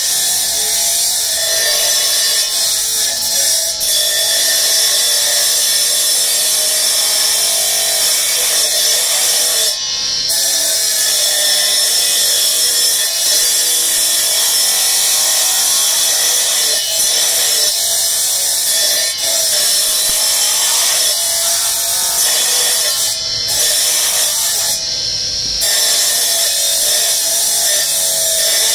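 Bench-mounted abrasive wheel grinding a hand-held block of banded marble: a loud, steady, high grinding hiss over the motor's whine. The grinding noise drops out briefly about three times.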